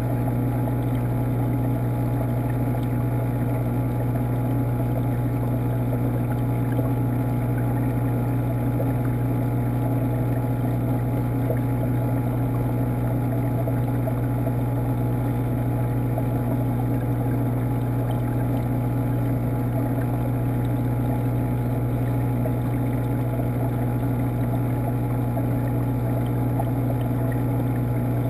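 Steady low hum of a saltwater aquarium's water pump, with a constant wash of water noise, picked up by a camera submerged in the tank.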